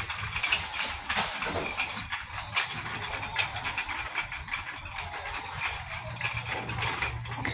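Wire shopping cart being pushed along a hard floor, rattling with a fast, irregular clatter of small knocks over a steady low hum.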